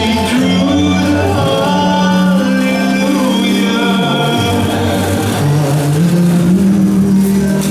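Figure skating program music playing over the rink's sound system: a slow melody of long held notes that step from one pitch to the next.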